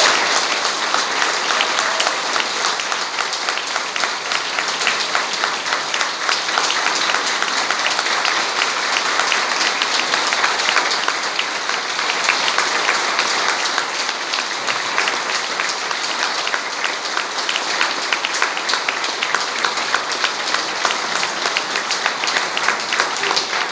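Audience applauding: dense, steady clapping that holds at much the same level throughout.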